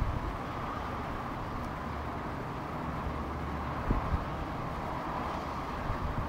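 Wind on the microphone with a steady outdoor background hiss and rumble, and two brief bumps about four seconds in.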